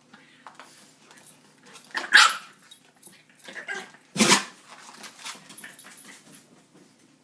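A dog barking twice in play, about two seconds apart, with quieter short dog noises around the barks, during rough play between a French bulldog puppy and a Labrador.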